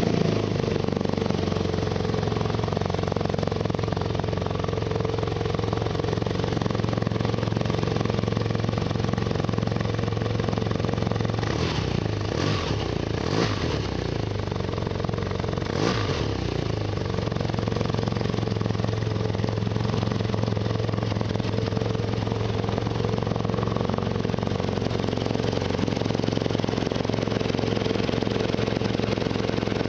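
BMW R nineT Racer's air/oil-cooled boxer twin, through its stock exhaust, idling steadily just after being started, with a few short sharp sounds near the middle.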